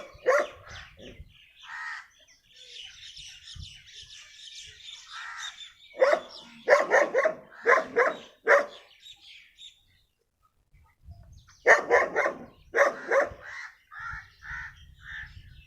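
A dog barking in bursts of several barks at a time, three bursts in all, with birds chirping in the gaps.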